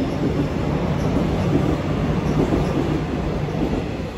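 Seoul Subway Line 1 electric train running out of the station past the platform: a steady rumble of wheels on rail with a constant low motor hum, easing off slightly near the end as the train draws away.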